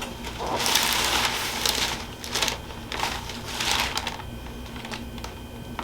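Rustling and brushing of hands and clothing as a patient is moved into a chiropractic stretch, in several short swells of rustling over the first four seconds.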